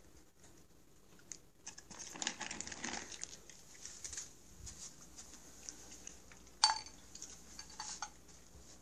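Rustling and crinkling, then a single sharp metallic clink with a brief ring about two-thirds of the way through and a few lighter clicks: a cat eating from a stainless steel bowl.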